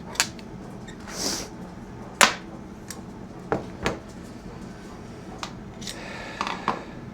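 Small metal chainsaw engine parts being handled on a bench: a series of sharp clicks and taps, with a short scraping hiss about a second in.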